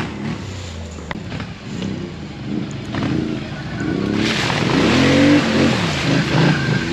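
Quad ATV engine revving up and down as the machine drives through a muddy water hole. About four seconds in it gets louder, and a hiss of tyres churning mud and water joins it.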